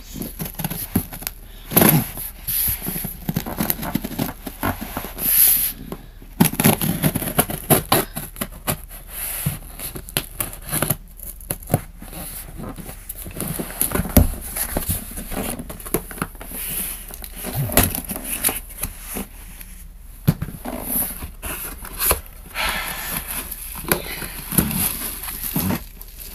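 Scissors cutting packing tape on a cardboard laptop box, then the box being handled and opened, its packing paper and plastic rustling and crinkling. An irregular run of snips, scrapes, taps and rustles.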